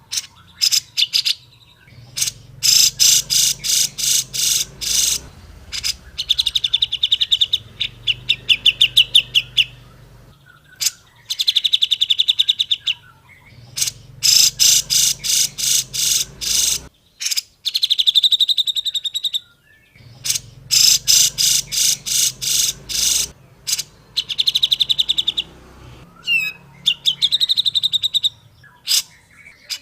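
Grey-cheeked bulbul (cucak jenggot) singing loudly: runs of rapid, sharp repeated notes, each run followed by a warbling trill. The phrase repeats several times with short pauses between.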